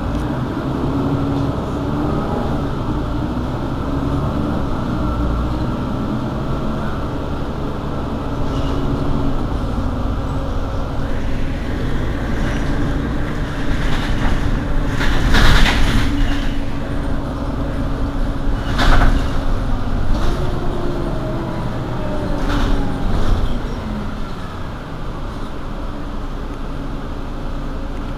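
Mercedes-Benz Citaro city bus with its engine idling steadily. There are two louder bursts of noise about halfway through and a few seconds later.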